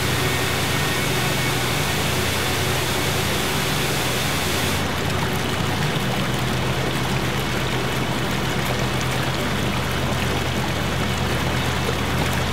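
A small rocky stream rushing and cascading over boulders: a steady, even rush of water. A low steady hum lies under it.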